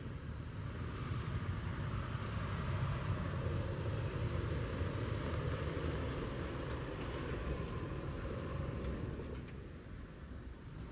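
Toyota 4Runner's 4.0-litre V6 engine running at low revs as the SUV crawls out of a rutted ditch and passes close by, growing louder as it nears. A few sharp clicks come shortly before the end.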